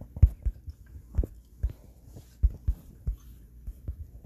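Fingers tapping on a phone's touchscreen, picked up through the phone's own microphone as a string of irregular dull thumps, about two a second.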